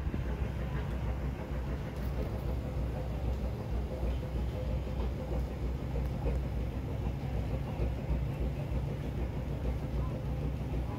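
Steady low rumble with no sudden events.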